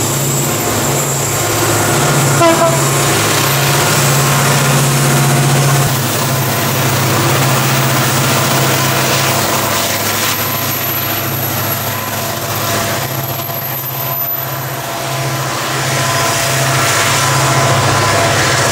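Two CC 205 diesel-electric locomotives working in double traction, passing under power with a steady deep engine drone, over the rumble and clatter of the long train of coal hopper wagons on the rails.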